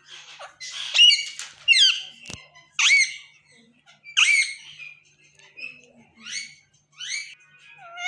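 Indian ringneck (rose-ringed) parakeet calling: about six short, loud, chirpy calls with swooping pitch, roughly a second apart. A single sharp click comes a little after two seconds in.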